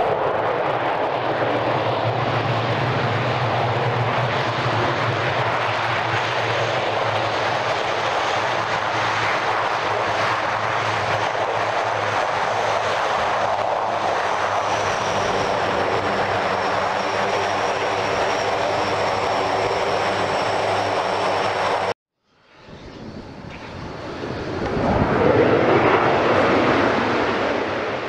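Lockheed C-130 Hercules' four turboprop engines running loud and steady as it rolls on a grass runway, a low propeller hum with a thin high turbine whine. The engine sound cuts off suddenly near the end, and a separate whooshing noise swells up and fades out.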